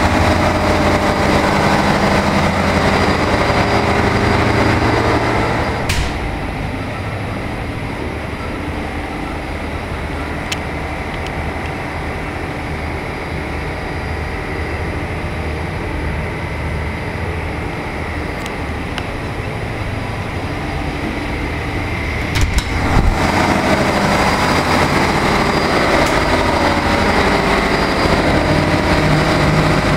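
Steady loud drone of a cargo ship's engine-room diesel machinery. About six seconds in, a door shuts with a click and the drone drops to a muffled hum. A little after twenty-two seconds a latch clicks, the door opens and the full drone returns.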